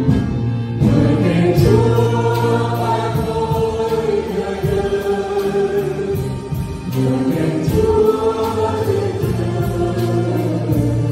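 A mixed ensemble of men and women singing a Vietnamese hymn together into handheld microphones, with long held notes over a steady low note.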